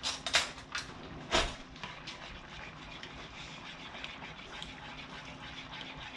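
Metal cutlery clattering as a hand rummages in a kitchen utensil drawer: several sharp clinks in the first second and a half. After that only a steady low hiss from the steaming pan on the stove.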